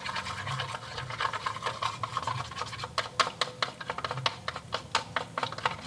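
A stirrer scraping and clicking against the sides of a small container as water and liquid soap are stirred to work up a foam. The strokes are quick and come faster and crisper in the second half.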